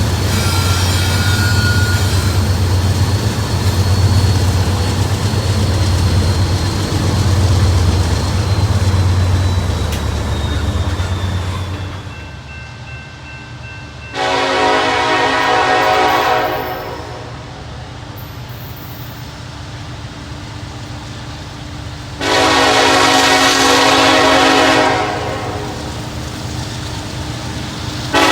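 Diesel locomotive running with a heavy low rumble for about twelve seconds, then its air horn sounding two long blasts several seconds apart, with a third starting just at the end.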